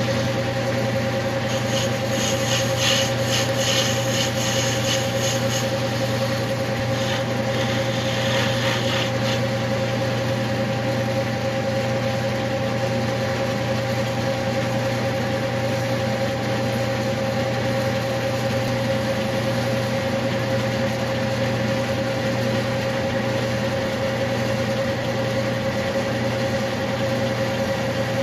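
Clausing metal lathe running steadily with a constant motor and spindle hum while a tool turns brass bar stock. The cut adds a scratchy, high-pitched cutting noise over roughly the first nine seconds, in two stretches, then the lathe runs on with only its hum.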